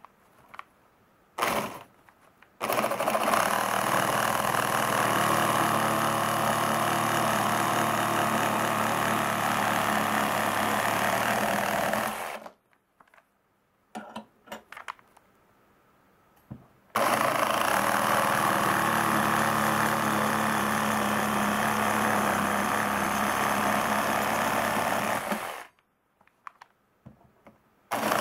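Makita JR144DRF 14.4 V cordless reciprocating saw with a Z-saw 210 mm wood blade cutting through 2x4 lumber, two cuts of about ten seconds each. A short blip of the saw comes just before the first cut, and a few small knocks fall in the quiet between the cuts.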